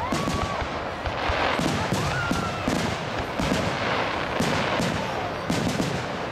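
Aerial fireworks shells bursting one after another in an irregular string of sharp bangs.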